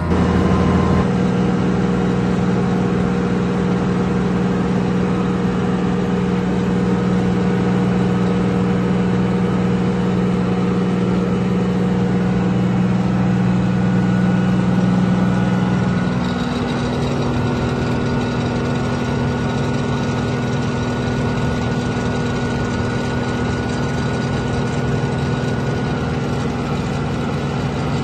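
The heavy diesel engine of a 2005 Wirtgen W1200F cold planer idling steadily, heard close by. About halfway through, its note steps slightly higher and a little quieter.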